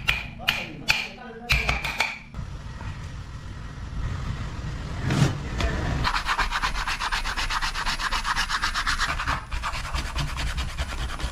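A hand carving blade scraping and shaving wood in rapid short strokes, building up from about six seconds in. Before that come a few sharp taps and a single louder scrape.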